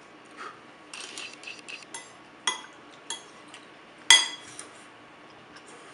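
Metal spoon clinking and scraping against a plate and bowl while eating: a run of light taps and scrapes, then a few sharper ringing clinks, the loudest about four seconds in.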